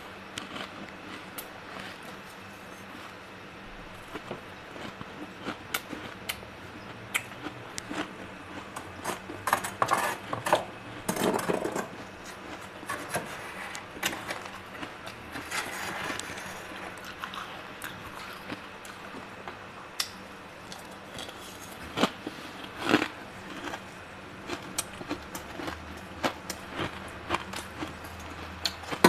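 Metal spoon scraping and chipping at thick frost inside a freezer compartment: irregular, slightly crunchy scrapes and clinks of metal on ice, coming in several denser bursts.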